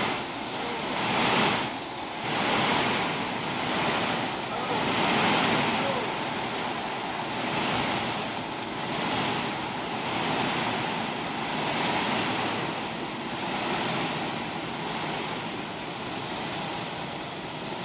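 Gravel sliding and pouring out of a raised dump truck bed onto a pile: a rushing hiss that swells and eases every second or two.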